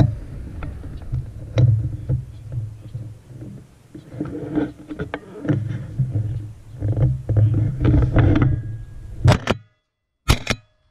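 Low rumbling handling noise with many small knocks and clicks from a camera mounted on a shotgun barrel as the gun is shifted and raised toward the sky. It cuts off suddenly about nine and a half seconds in, with one more short loud burst a second later.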